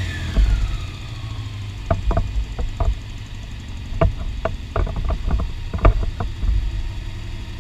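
Honda CBX 750 air-cooled inline-four idling after a throttle blip, its revs falling back over the first second, during carburetor balancing. A run of sharp clicks and knocks sounds over it from about two to six seconds in.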